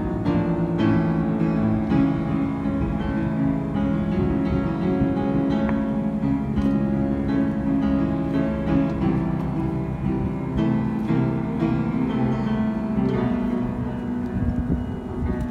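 Upright piano being played without a break, many notes sounding together as chords with a melody over them.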